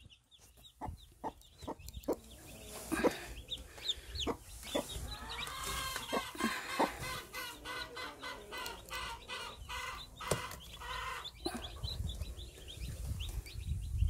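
Mother hen clucking over her newly hatched chicks, with a run of rapid clucks around the middle, as small chicks peep and the straw rustles.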